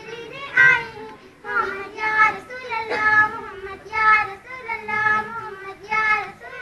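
A schoolgirl singing unaccompanied, a slow melody in short phrases of held notes with brief breaks between them.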